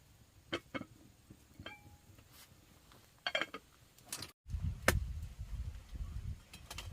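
Scattered light clinks and knocks of small hard objects, one briefly ringing. About four and a half seconds in the sound drops out for an instant, then a low rumble starts with a sharp knock.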